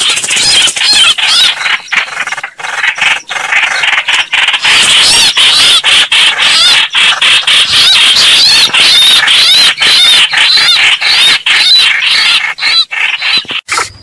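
Recorded bird calls of the kind used as a hunting lure, labelled as greater coucal (bìm bịp) calls: a dense, shrill stream of rapidly repeated rising-and-falling squeals with short breaks.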